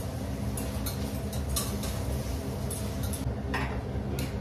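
A metal spoon clinking and scraping against a stainless-steel pot while onions are stirred on a gas stove, several light clinks scattered through, over a steady low hum.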